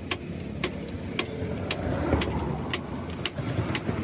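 Truck engine idling with a low, steady rumble, and a sharp, regular click about twice a second over it.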